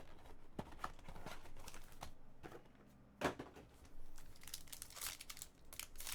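Trading cards and their plastic sleeves being handled: soft rustling and crinkling, with small clicks and one sharper click about three seconds in.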